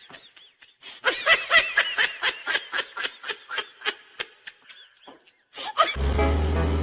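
High-pitched, rapid laughter: a run of quick 'ha-ha' pulses, about four a second, that slows and fades away. Near the end, music with a heavy bass line comes in.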